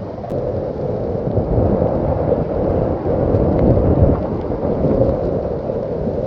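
Floodwater rushing down a wadi in spate: a loud, steady noise of churning water.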